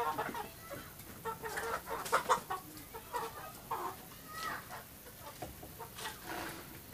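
Chickens clucking on and off, with a few sharp knocks from a wooden chair being moved on a workbench.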